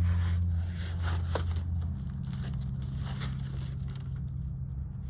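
Old paper rustling and crinkling as it is handled and leafed through, in short irregular strokes, over a low hum that drops off about two seconds in.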